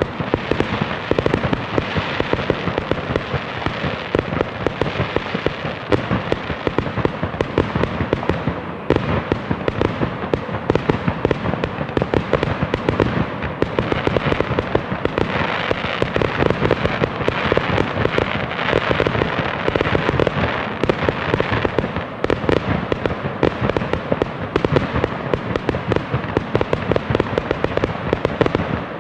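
A fireworks display: many bangs, pops and crackles overlapping in a dense, continuous barrage with no pause.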